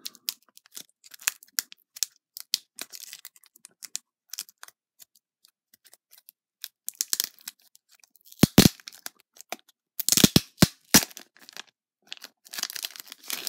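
Plastic bag crinkling and rustling as a trading card in a rigid plastic toploader is worked out of it, with scattered light clicks of the hard plastic. Several loud sharp clicks stand out about eight seconds in and again between ten and eleven seconds.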